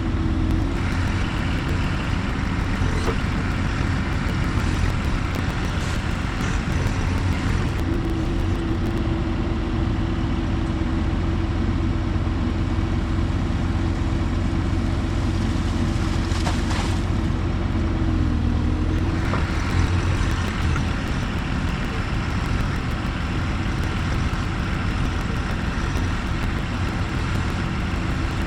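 Bobcat compact diesel engine running steadily at working throttle, with a deep rumble and a steady hydraulic whine that dips briefly about two-thirds of the way through as the load changes.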